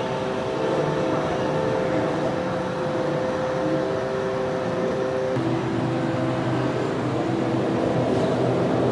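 A vehicle running steadily with a mechanical hum of several held tones, which shift lower about five seconds in.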